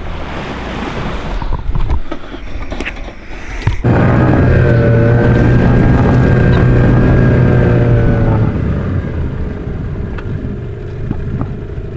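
Rushing noise of water and wind, then about four seconds in an engine starts abruptly and runs at a steady, even pitch for about four and a half seconds before fading back under the noise.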